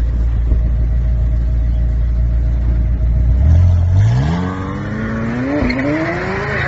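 McLaren 720S's twin-turbo V8 rumbling at low speed, then accelerating hard from about three and a half seconds in, its pitch climbing steadily with a brief dip partway up.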